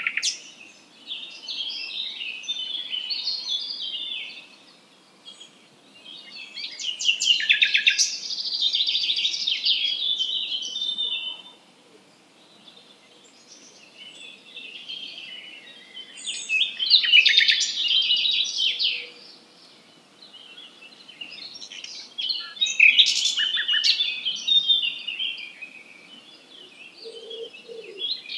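A songbird singing in bouts of quick, varied twittering notes and clicks, about four phrases of a few seconds each with short pauses between them, over faint background noise.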